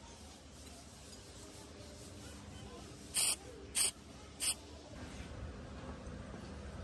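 Three short hissing bursts of spray a little over three seconds in, about two thirds of a second apart, the first slightly longer than the others.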